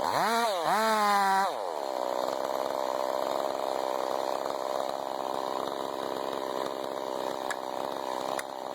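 Chainsaw engine revving twice in the first second and a half, then dropping back and running at a steady lower speed.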